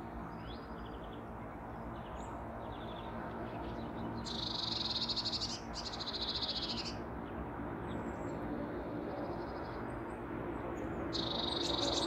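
Small songbird singing a fast, high trill three times, each about a second long, with short high chirps between.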